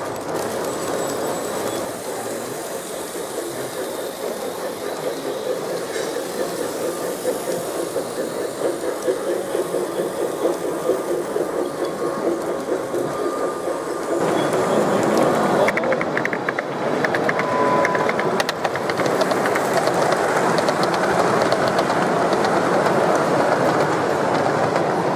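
Model trains running along the layout track, a steady rolling rumble of small wheels on rail; it gets louder a little past halfway.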